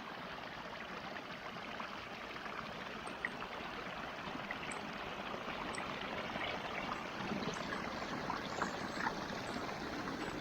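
Running water flowing steadily in a stream, an even rushing with a few faint ticks.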